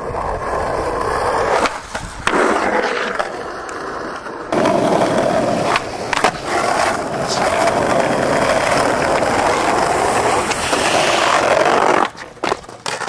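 Skateboard wheels rolling on rough pavement, broken by sharp clacks and knocks of the board hitting the ground. The rolling noise changes abruptly a few times as one run gives way to another.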